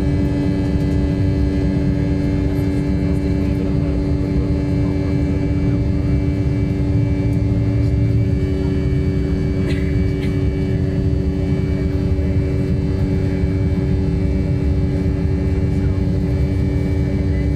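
Cabin noise of an Embraer E190 climbing out just after takeoff, heard from inside near the front of the cabin. Its two General Electric CF34-10E turbofans at climb power and the rushing air make a steady low rumble, with a steady hum of several tones over it.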